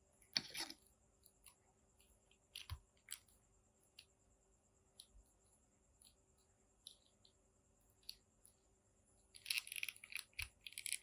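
Faint, scattered clicks and light rustling of plastic action-figure parts being handled, with a denser run of clicking near the end.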